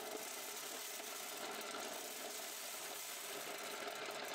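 Old MIO Standard corn sheller running steadily as it shells dried corn cobs, stripping the kernels.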